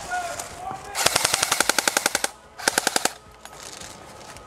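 Airsoft rifle firing on full auto: a rapid rattle of shots lasting just over a second, then a second, shorter burst about half a second later.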